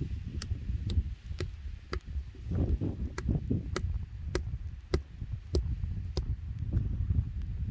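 A hand tool striking the ground or stone over and over, sharp knocks about every half second, with the low rumble of wind on the microphone underneath.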